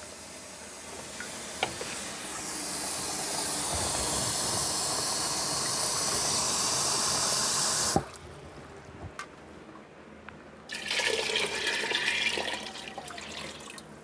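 Water running into a pot, growing steadily louder for about eight seconds and then cut off abruptly with a click. A second, shorter rush of water follows a few seconds later.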